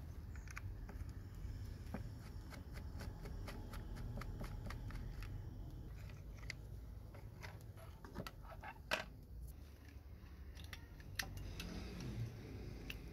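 Small, irregular clicks, taps and scrapes of a metal pick and a utility-knife blade working on a rusty model car's body and chassis, with a sharper click about nine seconds in, over a low steady hum.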